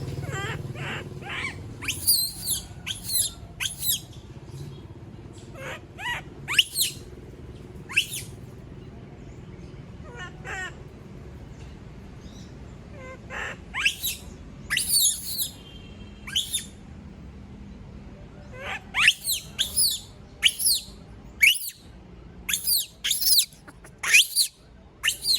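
Young pet monkey screaming when left alone: short, shrill, upward-sweeping cries repeated in clusters, with quieter gaps between them.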